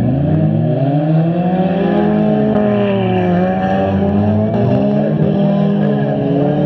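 Engines of several stock front-wheel-drive bump'n'run cars running together, revving up and down as they accelerate and push through the mud, their pitches rising and falling over one another.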